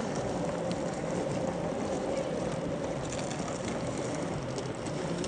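1/10-scale RC crawler's electric motor and drivetrain running steadily, with a slightly wavering whine and scattered light crackling clicks.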